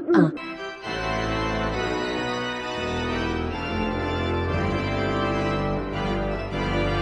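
A repeated pitched vocal sound cuts off right at the start. From about a second in, organ music plays steady sustained chords, with a bass line entering a few seconds later.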